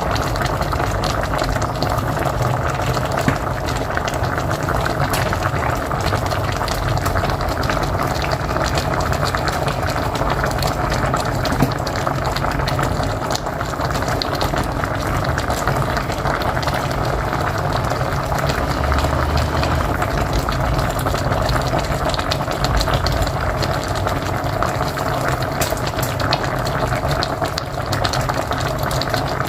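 A pot of mocotó (beef feet) boiling steadily on a wood-fired stove: continuous thick bubbling and popping of the cooking broth.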